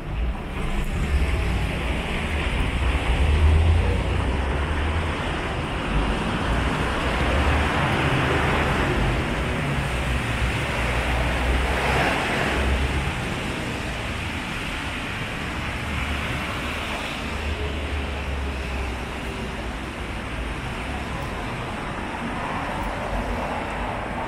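City street traffic: a steady wash of cars passing along the avenue, with a deep low rumble and one vehicle passing close about halfway through.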